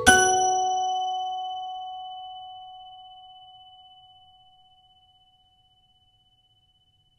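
Percussion ensemble's final chord on marimbas and other mallet instruments, struck together once and left to ring. It fades over about five seconds, with a few high bell-like tones ringing on longest.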